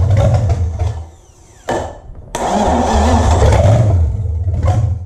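Rebuilt Chevy 305 small-block V8 firing up on the starter in two short goes: it runs loud, dies away about a second in, then catches again for about two and a half seconds before cutting out near the end.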